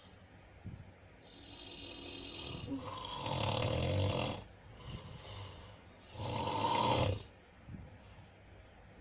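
A person snoring: two snores about three seconds apart, each lasting about a second, the first after a building breathy hiss.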